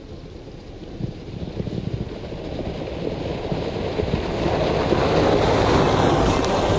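A car drives up along a snowy track and passes close by. Its engine and the tyres on the snow grow steadily louder as it comes near.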